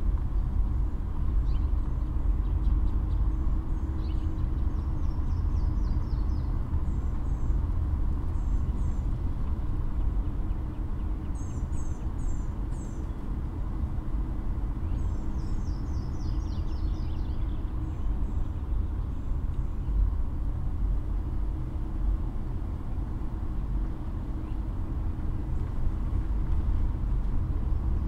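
Birds chirping and trilling over a steady low rumble. A short run of sharp high chirps comes about halfway, and a falling trill comes shortly after.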